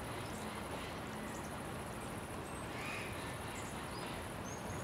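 Glacier-fed mountain river rushing over rocks: a steady, even rush of water, with a few faint high chirps over it.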